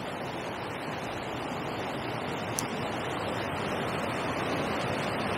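Steady rush of river water pouring over a weir, slowly growing louder, with one small click about halfway through.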